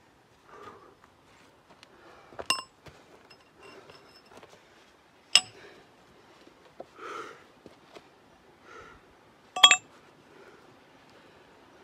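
Club hammer striking a steel point chisel set into rock: a few sharp, ringing metal clinks, a pair about two and a half seconds in, one near the middle, and a quick double strike near the end, with soft scuffs of the tools and gloves between them.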